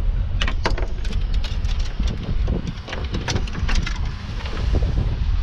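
Wind rumbling on the microphone, with a string of sharp clicks and knocks scattered through it, several close together in the first half.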